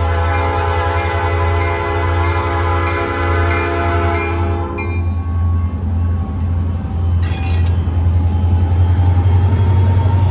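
Locomotive air horn held steadily for the grade crossing, cutting off about five seconds in, over the low diesel rumble of an EMD SD35 passing close by. The rumble grows as the engine goes past.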